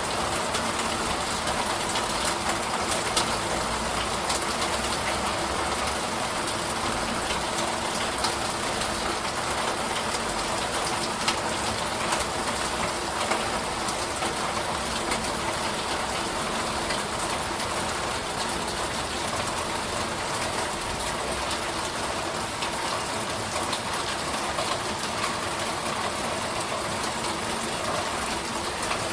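Steady, heavy rainfall: a dense, even hiss of rain with scattered drop ticks.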